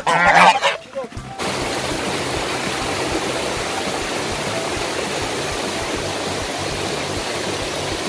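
Domestic white geese honking loudly for about the first second, then an abrupt change to the steady rushing of a waterfall pouring into a stream.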